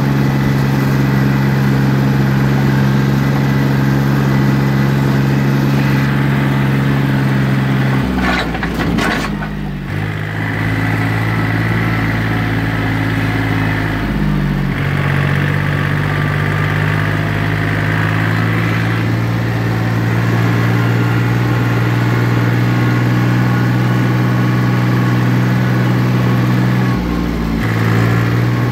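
John Deere 870 compact tractor's three-cylinder diesel engine running steadily under way. Its note drops about a third of the way in with a short clatter, steps back up about halfway, and dips briefly near the end, as throttle or load changes.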